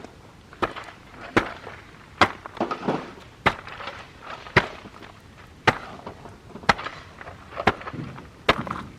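A series of about nine sharp knocks, roughly one a second, at a fairly steady pace.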